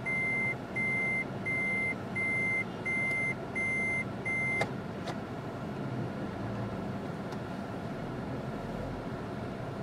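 An electronic warning beeper sounds seven times, about one and a half beeps a second, and cuts off with a click a little under halfway through. Steady engine and road noise inside a car follows.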